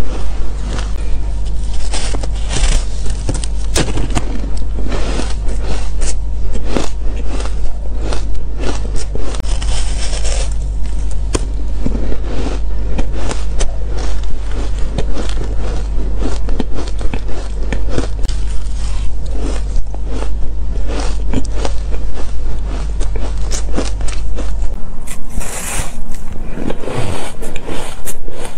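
Close-miked crunching of compressed shaved ice being bitten and chewed: a dense run of sharp, irregular crunches. A low steady hum lies underneath and stops near the end.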